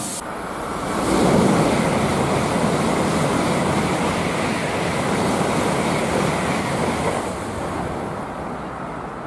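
Train passing at speed: a steady rushing noise with no clear rhythm, swelling about a second in and easing off near the end.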